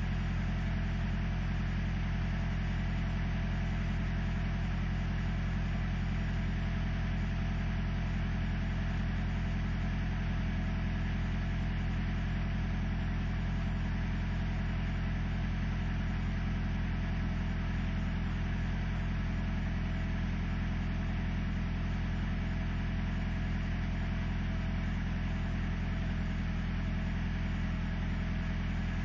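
Pickup truck's engine idling steadily while warming up after a cold start in sub-freezing cold, with no throw-out bearing squeal.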